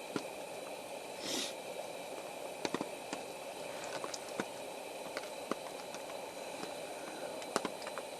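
Water drops tapping irregularly on a camping tarp, single sharp ticks scattered over a steady hiss of wet surroundings after rain.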